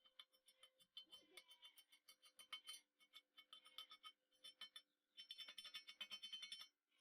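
Stick (arc) welding electrode crackling in irregular rapid bursts, with short breaks and a denser, steadier run near the end, over a faint steady hum.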